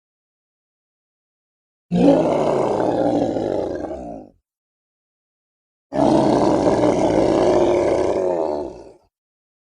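Two long roars from a giant-ape creature sound effect, with dead silence between them. The first lasts about two seconds and the second about three, tailing off at its end.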